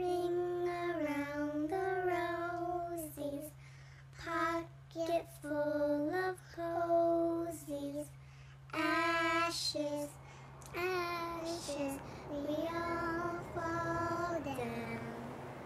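A child singing a slow, unaccompanied tune in long held notes with short pauses, over a steady low hum.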